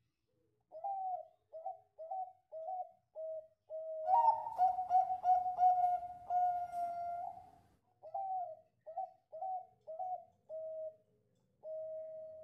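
Zebra dove (perkutut), Bangkok song type, singing its cooing song. It gives a run of short rising coos, a louder rolling, warbling phrase in the middle lasting a few seconds, then another run of short coos and a drawn-out final note.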